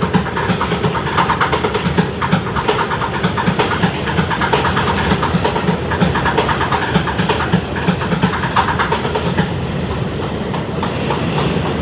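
New York City Subway car running at speed, heard from inside the car: a steady rumble with wheels clacking and knocking over rail joints.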